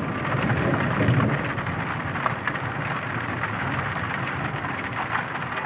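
Dark ambient horror background music: a steady, noisy, rain-like rumbling wash with faint held tones over it.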